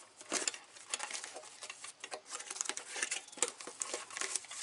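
Small cardboard box handled and its flaps pulled open, with irregular crackling and rustling of cardboard and packing.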